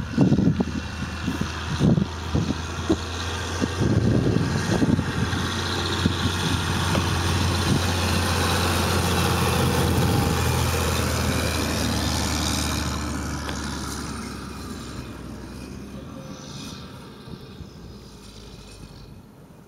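Diesel tractor towing a tandem-axle slurry tanker drives past on a farm track: its engine's steady drone grows louder to a peak about ten seconds in, then fades as it moves away. Low thumps of wind on the microphone come in the first few seconds.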